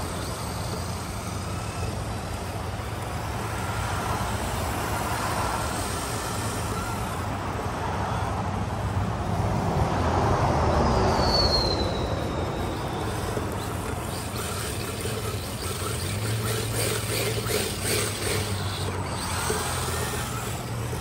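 Electric RC drift car (Traxxas 4Tec 2.0) being driven, over a steady low rumble. About halfway through, its motor whine falls in pitch. Near the end come a run of short scuffs and clicks.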